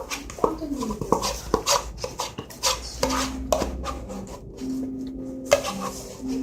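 Cutlery clicking and scraping against a plate in quick, irregular knocks while eating. A steady low tone comes in about halfway through.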